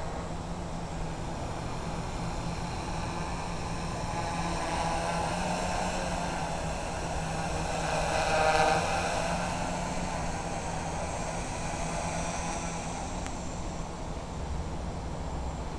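Honey Badger prototype FPV quadcopter's electric motors and propellers whining in flight. The sound swells to its loudest about eight seconds in as the quad passes close, then eases back, over a steady low hum.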